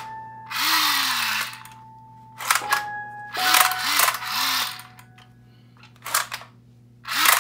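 Battery-powered toy assault rifle, a blue SCAR-style blaster, playing its electronic gunfire sound effect through a small speaker in two hissing bursts, about half a second and three and a half seconds in. Sharp plastic clicks of the trigger and handling come in between.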